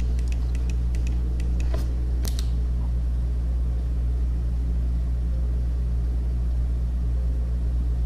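Steady low hum, with a few faint clicks in the first couple of seconds.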